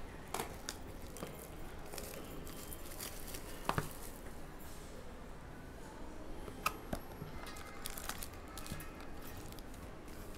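Hands handling a cardboard trading-card hobby box: light rubbing with scattered taps and knocks as the box is opened and its foil-wrapped packs are taken out and set on the table. The sharpest taps come a little before halfway and about two-thirds of the way through.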